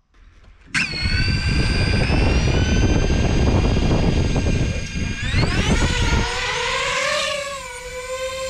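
DJI FPV drone's electric motors and propellers whining. The sound starts suddenly about a second in with a low rushing noise beneath it. About five seconds in the whine rises in pitch, the low noise drops away, and it settles into a steady higher whine.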